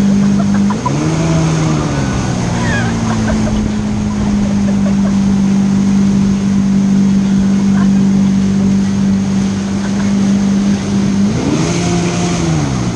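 Jet ski engine running steadily while towing, with water rushing from the wake and wind on the microphone. Its note climbs and holds higher about a second in and again near the end, then drops back each time as the revs rise and fall.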